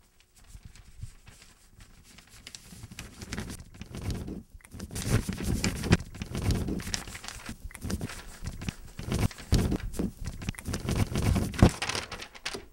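Paper rustling and crinkling as a sheet is signed against a man's back, mixed with rubbing and bumping on a hand-held microphone. It is quiet at first and turns loud and scratchy from about four seconds in.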